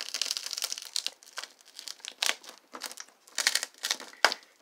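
Irregular crinkling and crackling noise in quick uneven spurts, with one sharper crack near the end.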